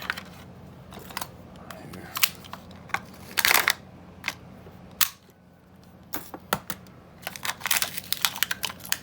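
Small brass padlock and lock-picking tools being handled: scattered light metal clicks and taps, a short louder scrape about three and a half seconds in, and a quick run of clicks near the end.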